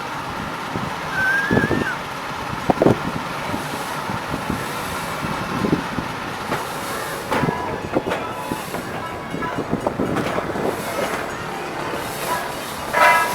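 A train running along, with a steady rumble and scattered short clanks.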